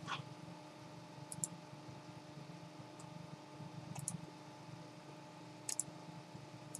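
Faint computer mouse clicks at irregular intervals, several coming in quick pairs like double-clicks, over a low steady hum.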